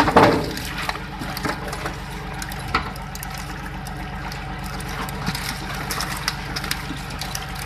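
Water splashing and trickling as a fishing net is hauled from the sea at the side of the boat, with scattered knocks and a low steady hum underneath.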